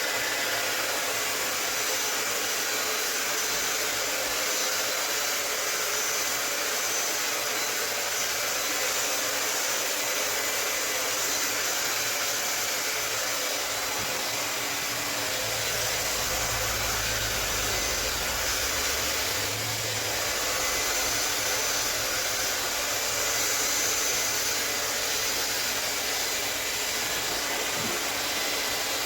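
Handheld hair dryer blowing steadily, a continuous airy hiss with a faint motor whine, as it pushes poured acrylic paint across a canvas. Some extra low rumble comes in briefly about two-thirds of the way through.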